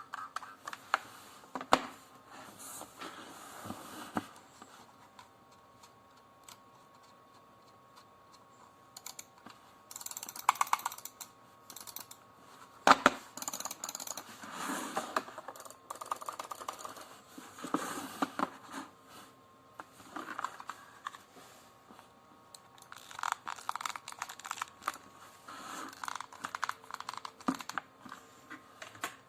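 Computer mouse buttons clicked and wobbled by hand: sharp single clicks and quick rattling clusters from play in the buttons and a crunch from the shell, with a quieter pause a few seconds in.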